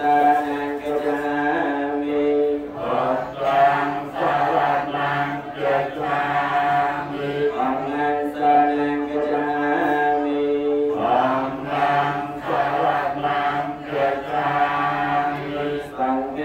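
Khmer Buddhist ritual chanting (sot mon) of Pali verses: voices chant in long, drawn-out held tones. They break briefly about three seconds in and again about eleven seconds in.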